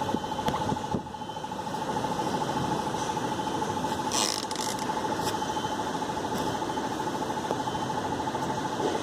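Steady machine running with a constant high whine, and a brief clatter about four seconds in.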